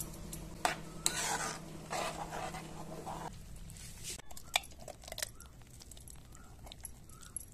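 A spatula stirring and scraping through a sizzling tomato gravy in a frying pan, with bursts of sizzling in the first three seconds and a few sharp taps of the utensil against the pan later on. A low steady hum stops about three seconds in.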